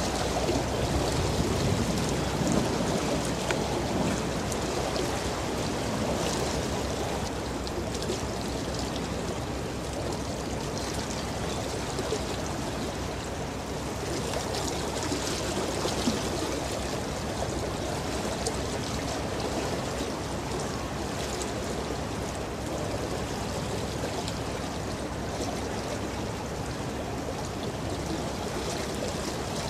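Steady rushing noise of river water, with no distinct events, a little louder in the first few seconds.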